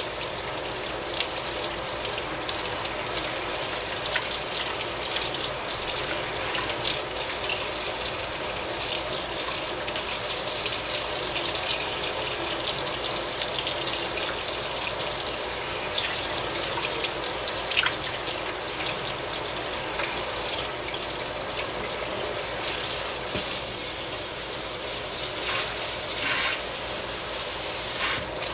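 Kitchen faucet running steadily into a stainless steel sink, the stream splashing over raw mullet pieces as they are rinsed and rubbed clean by hand.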